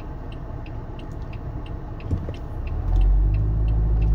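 Car's diesel engine idling, heard from inside the cabin, then running louder about three seconds in as the car pulls away. A steady, even ticking, about three ticks a second, runs alongside.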